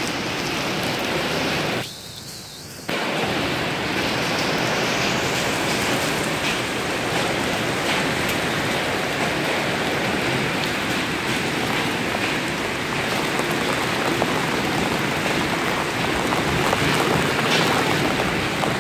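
Heavy rain pouring down steadily in a downpour from an early-season storm. About two seconds in, the sound briefly drops and goes muffled for about a second.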